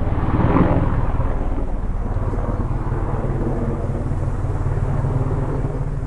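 Helicopter running, a steady low rumble that swells briefly about half a second in and then slowly fades.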